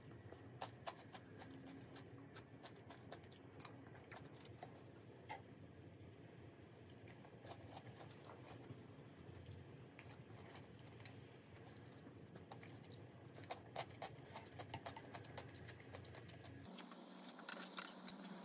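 Faint eating sounds: scattered small clicks of a metal spoon against a soup bowl, with soft chewing and a few louder clicks near the end.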